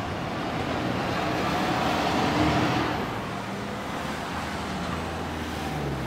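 Street traffic: a motor vehicle passes, its engine and tyre noise swelling to a peak about two and a half seconds in and then fading, over a steady low traffic hum.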